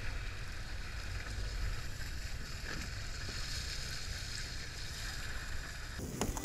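Wind buffeting the microphone and water rushing and splashing along the hulls of a small sailing catamaran under way, a steady rumble and hiss.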